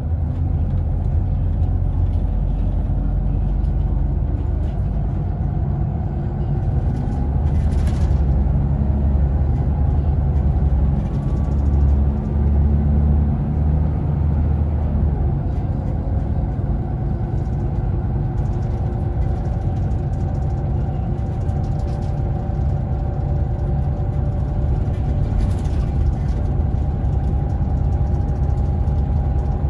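Scania Irizar Intercentury coach's diesel engine running under way, heard from inside the bus: a steady low drone, louder for a few seconds early on, then with a tone that climbs slowly as the coach picks up speed along the road. Two brief hisses cut in, about eight seconds in and again later.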